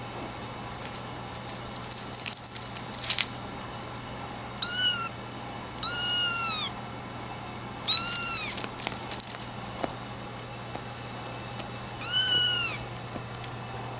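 Bengal kittens mewing: four high, thin cries that rise and fall, the second one longer. Scratchy rustling and clicking comes about two seconds in and again around eight seconds, loud enough to match the cries.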